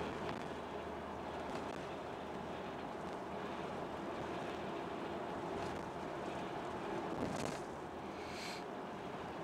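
Vehicle running steadily with a constant low engine hum, plus light rattles and a brief high-pitched sound about eight seconds in.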